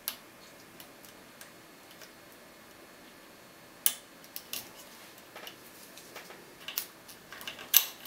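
Sharp metallic clicks of a lock pick and tension wrench working in a Winkhaus Titan pin-tumbler cylinder: a few faint ticks at first, one sharp click about four seconds in, then a run of irregular clicks with the loudest near the end.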